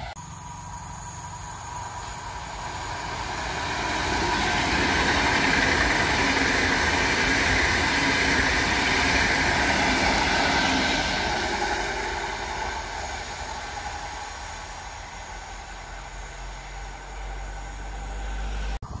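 PKP Intercity ED250 Pendolino high-speed electric train passing at speed: a rushing noise of wheels and air builds over the first few seconds, holds loudest from about four to eleven seconds in, then fades as it moves away.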